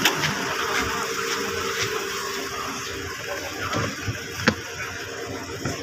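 A few sharp clicks and a louder knock about four and a half seconds in, from hands handling the open boot of a hatchback, over a steady low hum.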